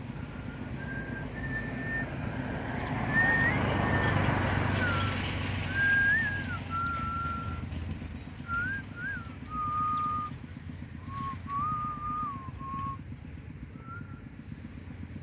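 A person whistling a slow tune of held notes that step up and down. A vehicle passes, its rumble swelling and fading about three to five seconds in.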